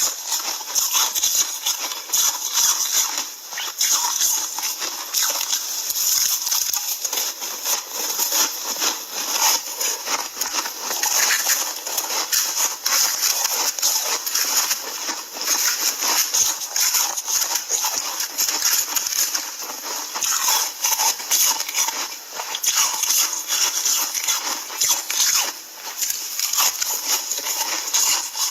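Ice being chewed close to the microphone: a steady, dense crunching and crackling of many small cracks.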